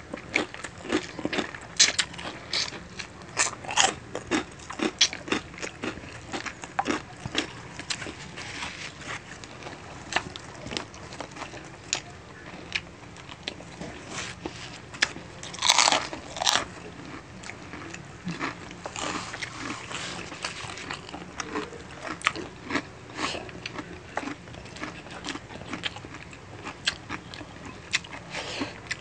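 Eating crunchy food: crisp crunches of chicharon (fried pork rinds) being bitten and chewed, along with chewing of adobo chicken feet. The crunches come irregularly throughout, with a loud burst of crunching about halfway through.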